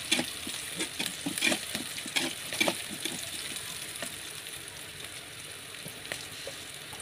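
Sliced garlic, shallots, ginger and chilies sizzling in oil in an aluminium wok while a metal spatula stirs them. The spatula clicks and scrapes against the wok through the first few seconds, then mostly the sizzle remains.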